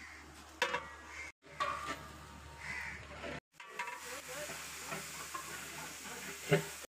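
Spice masala frying in oil and ghee in a large aluminium cooking pot, stirred with a long metal ladle: a soft sizzle with the stirring. Crows caw a few times, and the sound drops out briefly three times.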